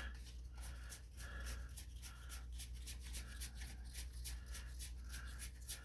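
Faint soft rubbing and ticking of trading cards being slid one over another in the hand, several small strokes a second, over a steady low hum.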